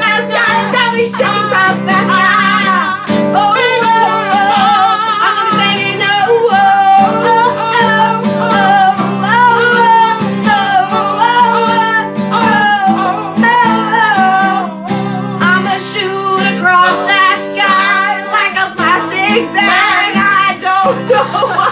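Several amateur voices singing a pop song over guitar accompaniment.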